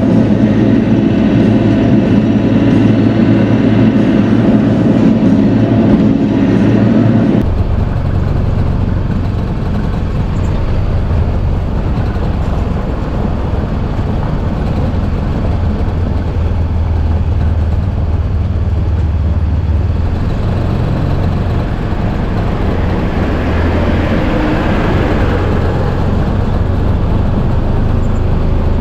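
Bobcat E42 mini excavator's diesel engine running under load while digging. The sound changes abruptly about seven seconds in, to a lower, steadier engine note.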